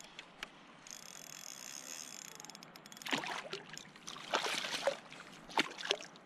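A spinning reel wound in with a steady whir, then water splashing as a small snapper thrashes at the surface beside a kayak and is let go. A few sharp clicks come near the end.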